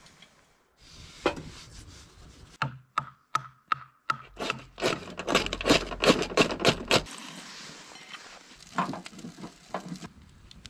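Sticks of firewood knocking against a small sheet-metal wood stove as it is loaded. It is a series of sharp wooden knocks, several with a brief metallic ring, coming thickest about halfway through. After that only a few softer knocks remain.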